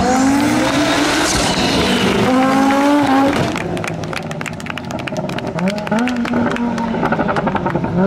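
Audi Sport Quattro S1's turbocharged five-cylinder engine at full throttle, its pitch climbing through the revs, then dropping off about three and a half seconds in with a rapid crackle of pops before it pulls up through the revs again.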